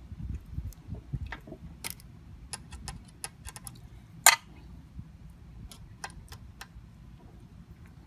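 Allen key clicking against a sprocket collar's set screw and the metal around it as the screw is turned loose, giving scattered small metallic clicks with one sharper click about four seconds in.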